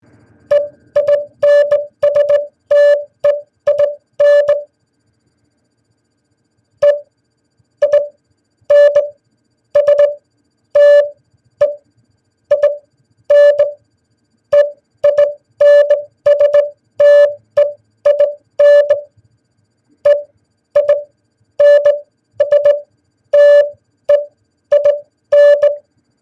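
Morse code beeps, a steady tone of about 600 Hz keyed on and off in short dits and longer dahs, spelling out 'Einstein'. A quick run of beeps comes first, then after a pause of about two seconds a longer run follows.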